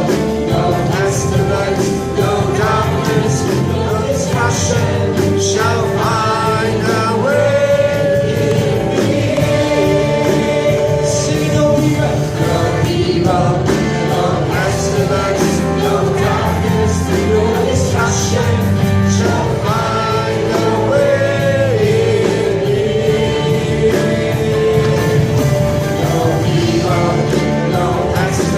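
Gospel worship song: singers, perhaps a choir, over a band with guitar, playing steadily.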